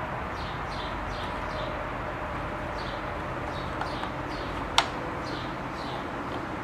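A single sharp metallic click, a little past two-thirds of the way through, as the pulley gear is worked onto its shaft in the underside of a Singer Stylist 522 sewing machine. Steady background hiss throughout, with faint, repeated high chirps.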